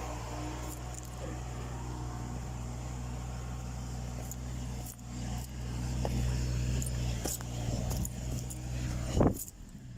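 Mini excavator's Yanmar 3TNV88 three-cylinder diesel running steadily, with scattered clicks and knocks over it. Just before the end there is a loud short burst, and the engine sound cuts off suddenly.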